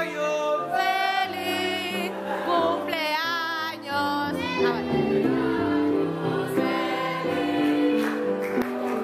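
Music with voices singing together in held notes, some with a marked vibrato.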